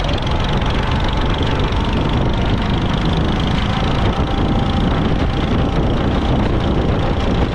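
International 454 tractor's four-cylinder diesel engine running steadily while the tractor is driven.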